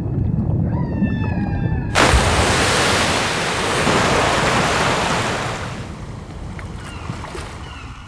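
Sound-designed ocean: a low rumble of surf with a few faint held tones over it, then about two seconds in a sudden loud rush of water-like noise that slowly fades away.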